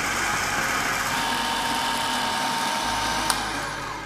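Countertop food processor motor running steadily with a whine, its blade churning a thick chickpea, peanut butter and oat mixture. It is switched off with a click about three seconds in and winds down.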